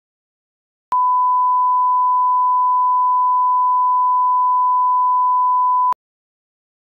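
Steady 1 kHz line-up tone, the pure reference tone that runs with colour bars at the head of a broadcast tape. It starts about a second in, holds level for about five seconds, and cuts off sharply.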